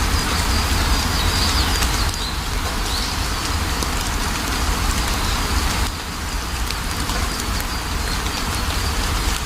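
Steady rain falling, a constant hiss with a deep low rumble beneath it and scattered ticks of individual drops. Faint bird chirps sound through the rain in the first couple of seconds and again near the end.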